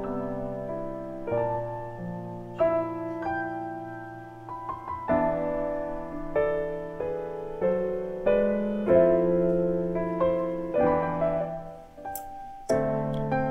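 Background solo piano music: unhurried chords and melody notes, each struck note ringing and fading.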